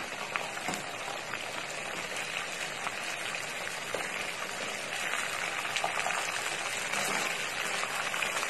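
Chicken 65 pieces deep-frying in hot oil in a kadai: a steady sizzle and crackle, with a few faint clicks of a slotted steel spatula as the pieces are turned over.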